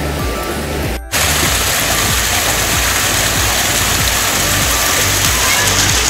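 Mountain stream water rushing over rocks, mixed with background music. The sound drops out briefly about a second in, and the rushing water is louder after it.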